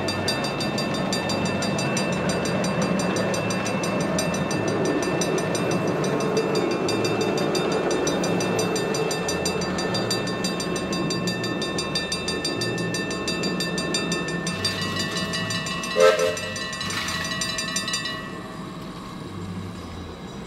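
Level-crossing warning bells ringing rapidly and steadily while a miniature park train carrying riders rumbles past on the track. Near the end a train whistle gives two short toots, and a couple of seconds later the bells stop as the barriers lift.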